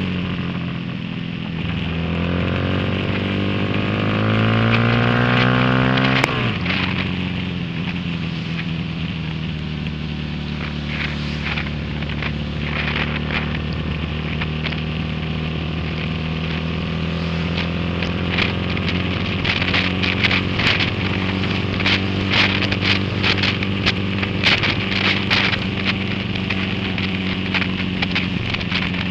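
Honda Grom MSX125's 125 cc single-cylinder engine, heard on board: the revs climb for a few seconds, drop sharply about six seconds in, then hold fairly steady at cruising speed. Through the later part, rain drops tap and crackle against the camera.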